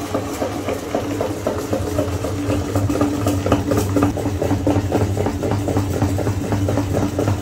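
Motor-driven meat grinder running with a steady hum, its auger crunching a candy-and-toy mix through the plate in rapid, even ticks.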